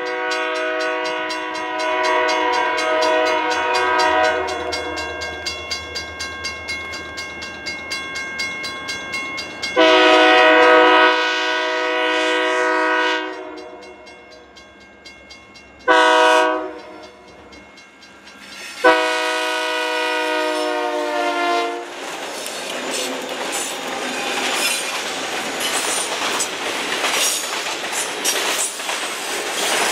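A freight locomotive's multi-tone air horn sounds a long, long, short, long pattern, the standard grade-crossing signal, as the train approaches. From about two-thirds through, the freight cars rumble past, their wheels clattering over the rail joints.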